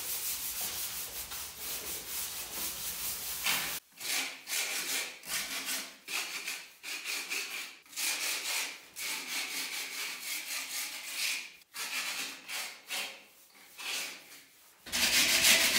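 Hand sanding of fresh cement render: sandpaper rubbed over the rough render in repeated scraping strokes to smooth its edges.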